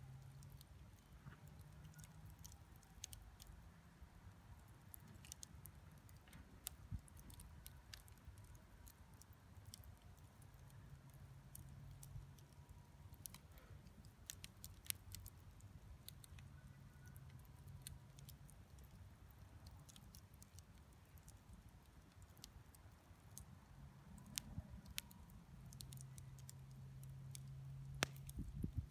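Wood campfire crackling faintly, with scattered small sharp pops and ticks, over a low hum that comes and goes.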